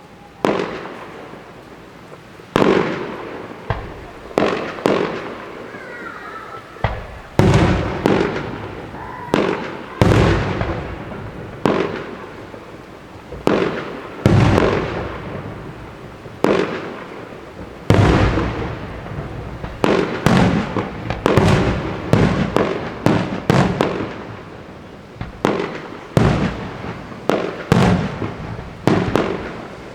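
Fireworks display: a string of loud firework bursts, each bang trailing off in a long echoing rumble, coming faster and overlapping in the second half.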